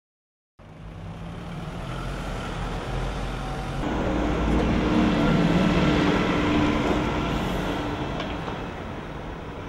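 Double-decker city bus engine running as the bus pulls away along the street, with traffic noise; it grows louder to a peak midway and then slowly fades.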